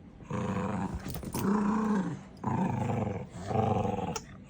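Small puppies growling in play over a toy, in three long growls, the first one the longest.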